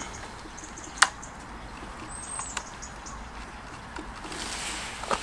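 Small handling clicks of a cable being fitted into a small plastic terminal block, one sharp click about a second in and a few fainter ones after, over a faint outdoor background hiss.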